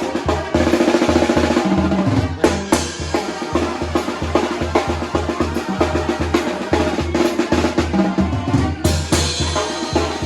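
Sinaloan banda brass band playing a son: a bass line pulses on a steady beat under held brass chords, with bass drum and snare strokes throughout.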